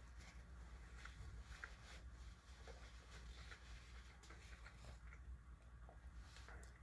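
Faint chewing of breaded mozzarella cheese sticks: soft, irregular mouth clicks and squishes over a low steady hum.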